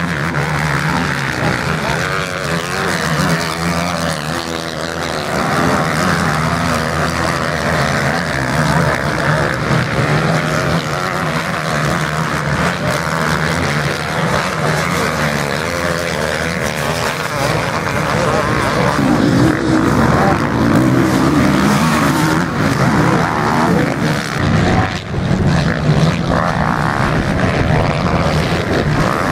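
Motocross bike engines revving hard and backing off again and again as riders accelerate out of corners, jump and brake on a dirt track; the engine pitch keeps rising and falling, and the sound grows louder about two thirds of the way through as a bike comes close.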